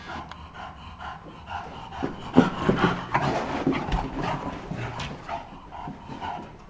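English bulldog making a quick run of short, rough breathy noises while playing with a ball, loudest about two seconds in and tapering off near the end.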